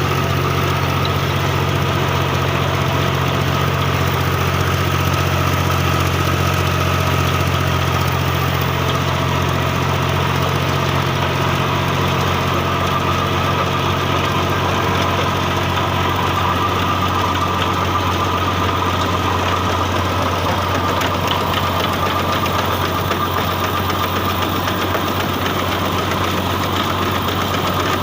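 Al-Ghazi tractor's diesel engine running steadily at an even speed, working a potato harvester.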